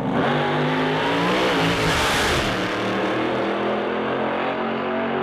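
Supercharged dragster launching from the start line and accelerating hard down the strip. Its engine noise swells to a peak about two seconds in and then eases as the car pulls away.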